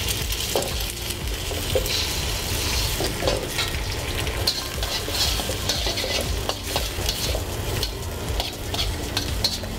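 Eggs sizzling in hot oil in a steel wok, with a slotted metal spatula scraping and tapping against the wok as they are broken up and scrambled, making many short sharp clicks over the steady sizzle.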